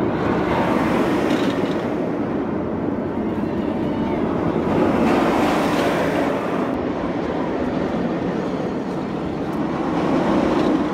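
Steel roller coaster train running along its track: a steady rumbling roar that swells as the train passes close, about a second in, around five seconds and again near the end.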